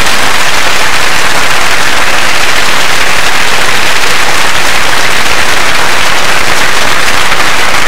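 Studio audience applauding, a loud, steady wash of many hands clapping.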